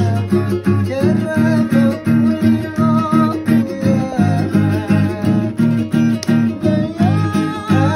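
Acoustic guitar strummed in a steady, even rhythm, with voices singing along over the chords.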